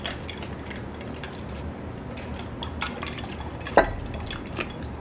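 Kitchen cooking sounds: scattered small clicks and drips over a steady low hum, with one sharper click a little before four seconds in.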